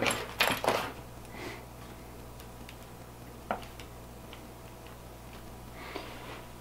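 Sharp clicks and knocks of a small metal tripod and gimbal mount being handled, several in the first second, then a single click about three and a half seconds in and a soft rustle near the end, over a low steady hum.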